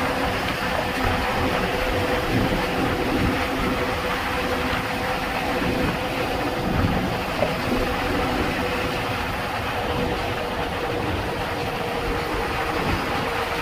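Road vehicle driving along at speed: a steady rumble of tyre and engine noise with a steady hum.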